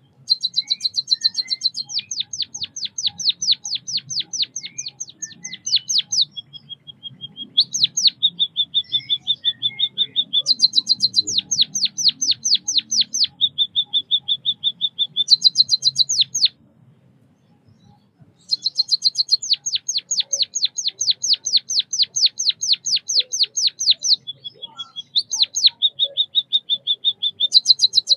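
White-headed munia singing, repeating one song phrase three times. Each phrase is a fast stuttering burst, then a long run of evenly spaced sweeping notes at about six a second, then a steady buzzy trill. There is a short pause about two-thirds of the way in.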